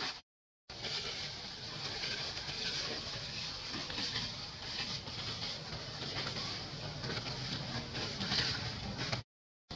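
Steady outdoor background noise, a low rumble under a high hiss, with no clear calls; it cuts to silence briefly just after the start and again near the end.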